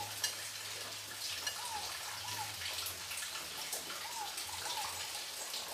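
Quiet kitchen room tone: a steady hiss with a faint low hum, and a few faint, short chirps scattered through it.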